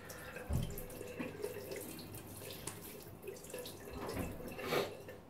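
Water from a tap running and splashing in a bathroom sink, with small knocks throughout, a low thump about half a second in and a louder splash near the end.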